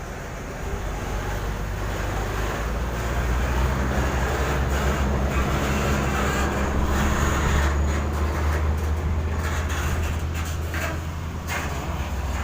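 Low rumble of a large vehicle's engine running close by, with road or wheel noise. It grows louder over the first few seconds and eases off slightly near the end.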